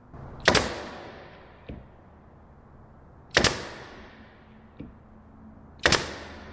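A pneumatic nail gun firing three times, about two and a half seconds apart: each a sharp, loud crack that trails off quickly, followed about a second later by a lighter click.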